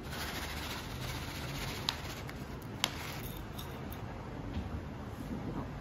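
Light rustling as granola and its paper pouch are handled over a porcelain plate, with two small sharp clicks about two and three seconds in.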